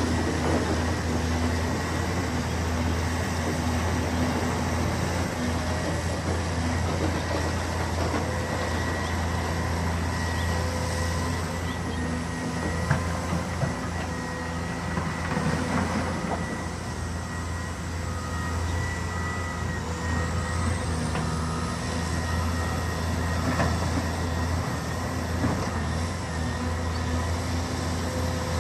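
Caterpillar 390F excavator's C18 diesel engine running steadily with a deep hum, a faint high whine rising and falling over it.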